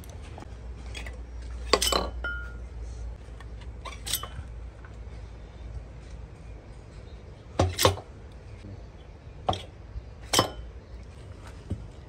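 Metal parts clinking as they are handled: about seven sharp strikes with short ringing, spaced irregularly, the loudest a quick double clink about eight seconds in, over a low steady hum.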